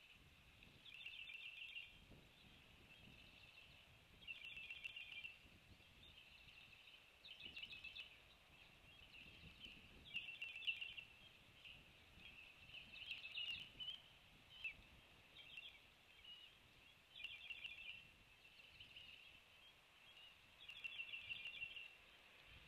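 Faint, high, rapid trills, each about a second long, repeated every two to four seconds: a small animal calling over a light background hiss.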